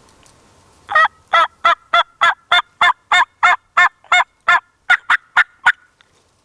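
Turkey call giving a long run of hen yelps, used by a hunter to strike up a gobble: about sixteen loud, evenly spaced notes at roughly three a second, starting about a second in.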